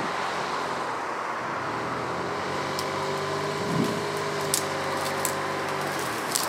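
Pickup truck engine running steadily, with a low, even hum that sets in about two seconds in and drops away near the end. A few light clicks sound over it.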